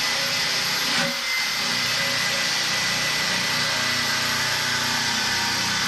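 A power tool's motor running steadily at speed with a thin high whine, dipping briefly about a second in.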